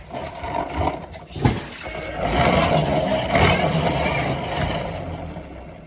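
Battery-powered remote-control toy car's small electric motor whirring as it drives, with a sharp knock about a second and a half in.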